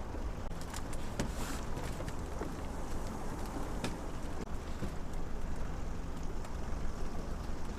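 Boat motor running steadily under an even rush of wind and water, with a few light clicks.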